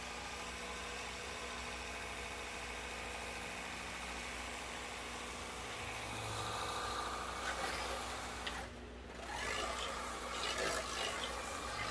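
990 PSI cordless battery-powered pressure washer running, its pump motor humming steadily under the hiss of spraying water. The hiss drops out briefly about nine seconds in, then returns.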